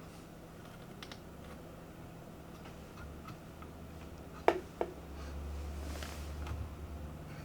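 Faint low mains hum with a few light ticks, and two sharp clicks about a third of a second apart a little past halfway.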